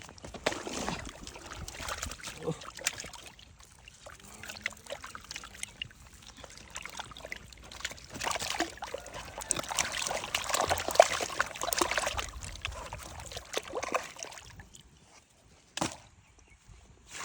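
Water sloshing and splashing in irregular bursts, busiest about halfway through, with one sharp knock near the end.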